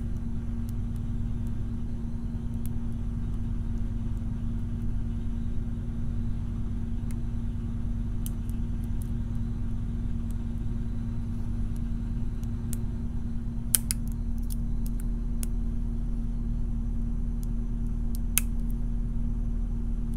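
Faint clicks of a lock pick working the wafers of an Illinois Duo wafer mortise cylinder under tension, with a couple of sharper clicks about two-thirds of the way through and near the end, over a steady low hum.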